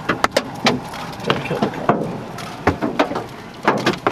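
Hailstones striking a vehicle, a run of irregular sharp knocks and taps, several close together near the start and a pair near the end.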